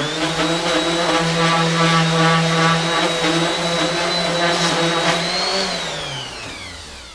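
Electric random orbital sander running on a corroded aluminum boat seat base plate, a steady motor whine. It is switched off about five and a half seconds in and winds down, falling in pitch.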